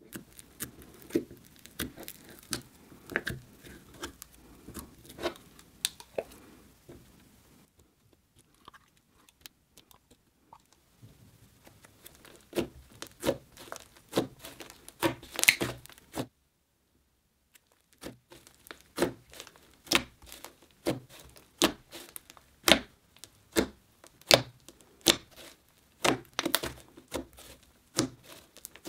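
Thick pink slime being squished and pressed by hand, making sharp crackling pops and sticky tearing sounds. The pops cluster in the first half. After a silent break of about two seconds just past halfway, they come in a fairly even run of one or two a second.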